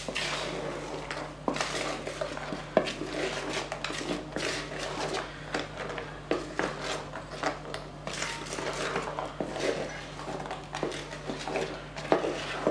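Spatula scraping and knocking against the sides of a bowl while folding a thick whipped-cream ice cream mix with crushed Oreo cookies, in irregular strokes with a few sharper knocks.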